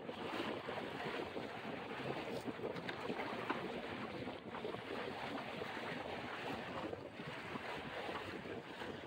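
Steady wind noise on the microphone, with water washing past the hull of a felucca under sail.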